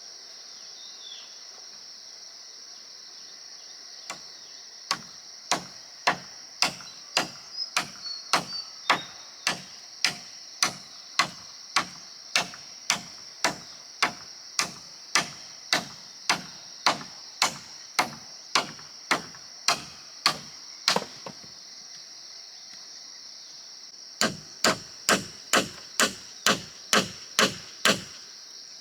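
Repeated blows of a tool striking wood, evenly paced at a little under two a second, breaking off for about three seconds before carrying on. A steady high-pitched drone of insects sounds throughout.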